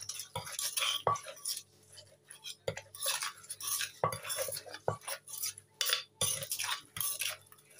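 Wooden pestle pounding and a metal spoon scraping and turning papaya salad in a clay mortar: irregular dull knocks mixed with short scrapes and wet rustles.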